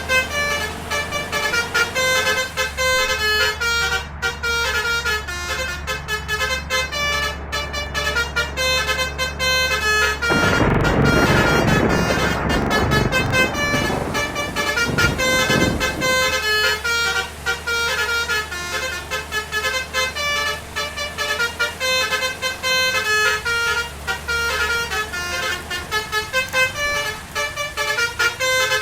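Bus basuri telolet horn playing a rapid melody of short stepped notes over a running engine. A loud rushing noise breaks in about ten seconds in and lasts a few seconds.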